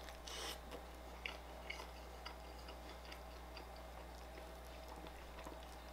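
A bite into a griddled egg-and-cheese toast sandwich about half a second in, followed by faint chewing with small, scattered mouth clicks.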